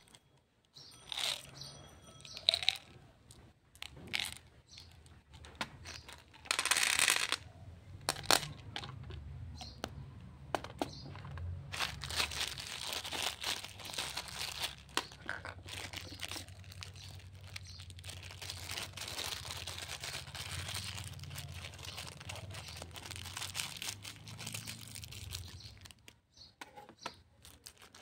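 Plastic candy packaging being handled: scattered clicks and snaps of a plastic flip cap and a brief loud rustle about seven seconds in, then a thin plastic bag of small candies crinkling almost without a break from about twelve seconds in.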